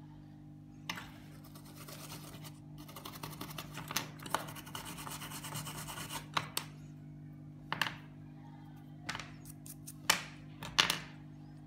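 Hands scraping and rubbing at the small parts of a disassembled USB pen drive for a few seconds, then handling them with several sharp clicks and taps, the last two loudest, over a low steady hum.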